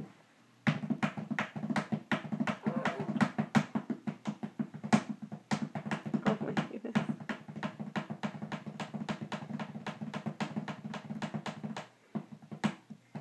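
Improvised drumming: a fast, even run of hand or stick taps, about four to five a second, over a steady low hum that stops about a second before the end.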